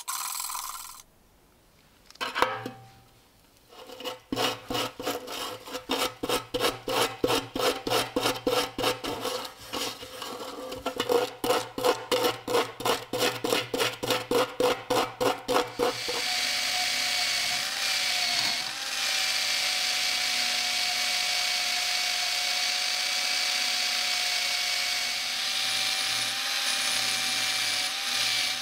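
A brush scrubbed back and forth by hand over rusty small steel parts, about three strokes a second. About sixteen seconds in this gives way to a motor-driven wire wheel running against the steel crossguard of the bayonet, a steady whine over a scouring hiss as it strips rust.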